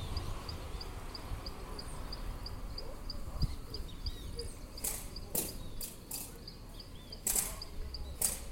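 An insect chirps steadily and evenly, about three short high chirps a second. Over the second half come several sharp snaps and clicks.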